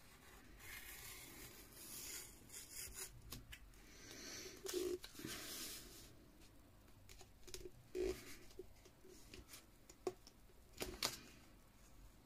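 Self-adhesive plastic film being cut off its roll: a faint crackle and rustle of the film, with a few sharp clicks in the second half.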